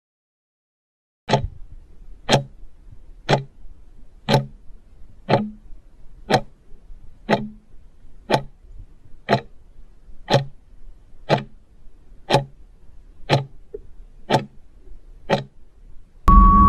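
Countdown timer sound effect ticking like a clock, one sharp tick a second, about fifteen ticks in all. Near the end it gives way to a louder, fuller sound with a steady beep, typical of a time's-up cue.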